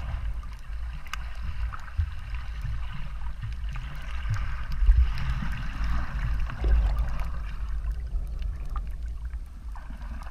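Underwater sound picked up by a snorkeller's camera: a low, uneven rumble of water moving around the camera, swelling louder twice near the middle, with a hiss and scattered faint clicks above it.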